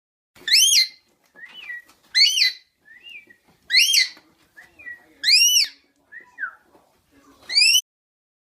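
An animal calling: five loud whistled calls, each rising then falling in pitch, about one and a half seconds apart, with softer short chirps between them.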